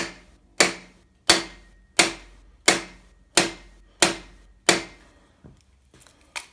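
Hammer blows on a cam bearing driver, driving a cam bearing into its bore in an Allis Chalmers engine block. About eight sharp metal strikes come at a steady pace of roughly three every two seconds, each ringing briefly, followed by a few light taps near the end.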